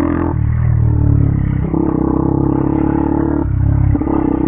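KTM Duke 200's single-cylinder engine running through an Akrapovic exhaust while riding, its note holding steady revs and stepping in pitch a few times as the throttle changes.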